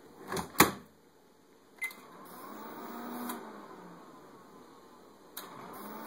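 Whirlpool Gold GH9185XLQ-0 microwave oven running empty: the door latch clicks shut, a keypad beeps, and the oven starts up with a hum. The hum fades away within about three seconds as the oven cuts out by itself. Near the end a click sounds and the hum builds again. The owner suspects a faulty magnetron leaking electromagnetic interference into the control board.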